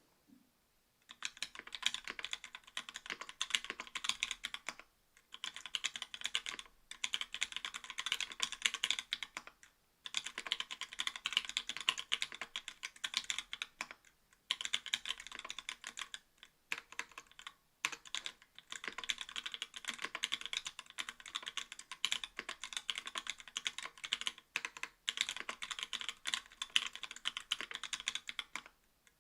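Fast typing on a mechanical keyboard with stock YOK Trash Panda linear switches under GMK keycaps on an aluminium plate: rapid clacking keystrokes in runs of a few seconds with short pauses between, starting about a second in.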